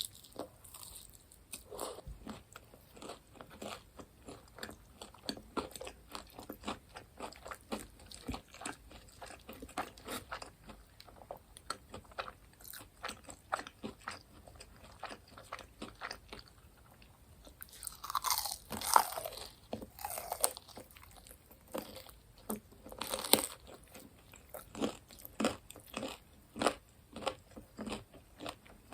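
Close-up chewing of crispy fried food: a dense run of crunches, with louder, longer crunching bites about two-thirds of the way through and again a few seconds later.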